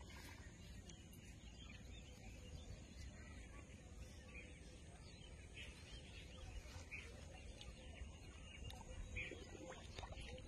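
Near silence: faint outdoor background with a low rumble and a few faint, scattered chirps.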